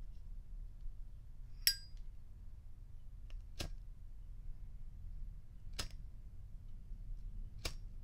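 Zippo windproof lighter: the chrome lid flips open with a ringing metallic clink, then the flint wheel is struck three times, about two seconds apart.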